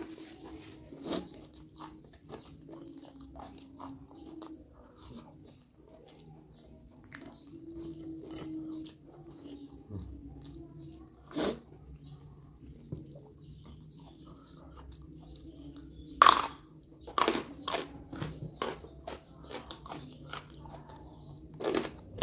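Chewing and crunching of raw lalapan vegetables and young jengkol, with a few loud crisp bites spread through the stretch.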